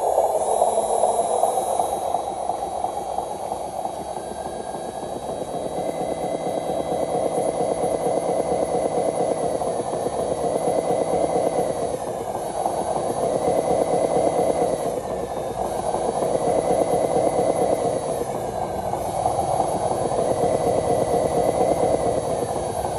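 Radio-controlled model truck's motor and gear drive running under load with a steady buzz. Over it, a whine drops in pitch and climbs back about five times as the throttle is eased and opened.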